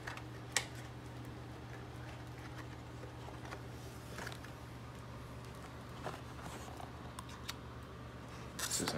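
Faint handling of a cardboard game box and a plastic blister-carded action figure: one sharp click about half a second in, then a few soft taps and rustles, over a steady low hum.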